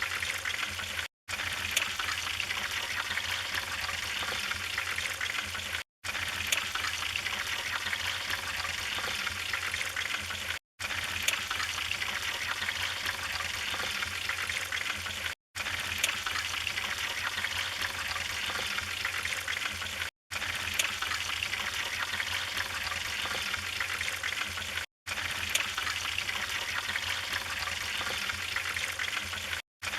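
Wood fire burning in a fireplace: a steady hiss with scattered crackles and pops, cut by a very short silent gap about every five seconds.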